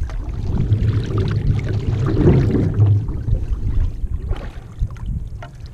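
Water splashing and sloshing along an outrigger canoe's hull and paddle as it is paddled, over a low rumble, with a few short knocks.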